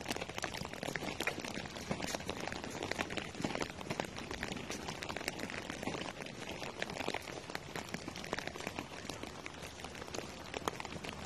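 Steady rain: a dense, irregular patter of raindrops.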